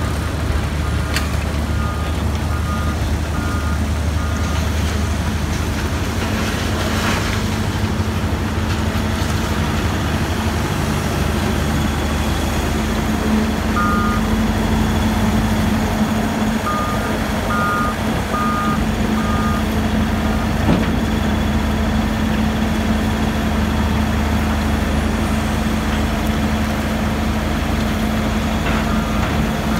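Ecohog ECS 2000 separator running with a steady, continuous machine drone as its conveyor discharges shredded wood. A reversing alarm beeps in short runs near the start, twice around the middle and again at the end.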